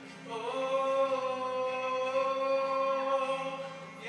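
A man sings one long held note over an acoustic guitar. He slides up into the note about a third of a second in and holds it steadily for over three seconds.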